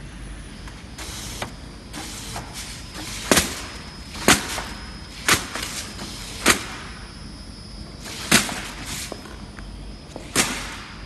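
Flat-surface sticker labeling machine running with its belt conveyor humming steadily, while six loud, sharp clacks come one to two seconds apart as trays are fed through and labeled, with a few softer clicks between them.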